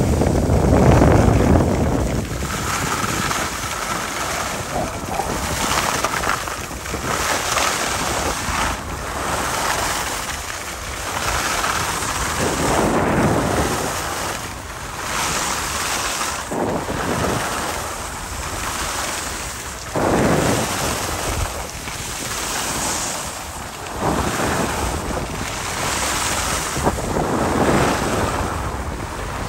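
Wind buffeting the microphone with the hiss and scrape of skis carving over groomed snow. It swells and fades every second or two with each turn.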